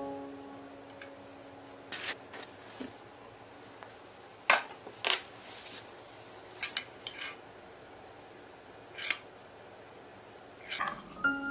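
A metal ladle clinking and scraping against a cooking pot and a glass dish: a dozen or so scattered sharp clinks, the loudest about four and a half seconds in.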